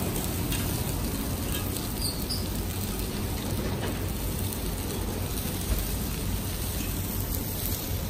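Thin slices of A4 Kagoshima wagyu beef sizzling on a hot, lard-greased grill: an even, steady hiss over a faint low hum.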